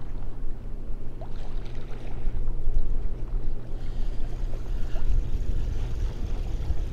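Wind rumbling on the microphone over choppy lake waves lapping and splashing.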